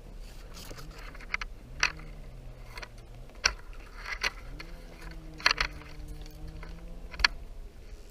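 Half a dozen sharp snaps and crackles at irregular intervals, over the steady drone of a distant engine whose pitch slowly wavers.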